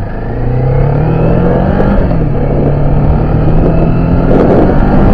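Kawasaki Z400's parallel-twin engine pulling on the road, its pitch climbing, dropping briefly about two seconds in, then climbing again toward the end, with wind noise on the microphone.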